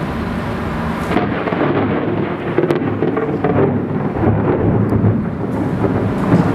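Crackling thunder from a close lightning strike, breaking out about a second in and rumbling on for several seconds.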